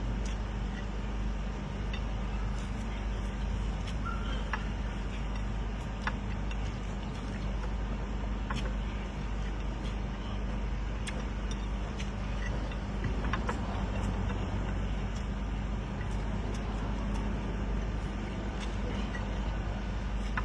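Steady low hum with background noise, and scattered faint clicks and ticks throughout.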